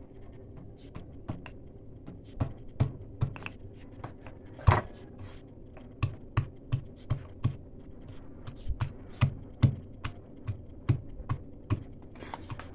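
Pestle pounding garlic and ginger in a stone mortar: repeated dull knocks, sparse at first, then a steady beat of about two to three a second, with one hard blow about five seconds in.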